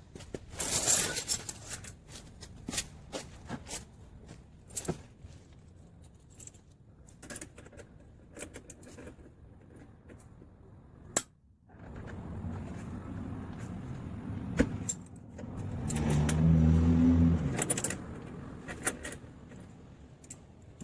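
Metal tools and parts clinking and clicking during hand work on a car, with a jangling rattle about a second in. From about twelve seconds a steady mechanical noise runs, loudest with a low hum for a second or two near the end.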